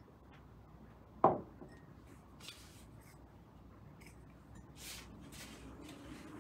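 A porcelain teacup set down on a wooden workbench with one sharp knock about a second in, then a few soft scrapes and taps as a tea infuser is lowered into the cup.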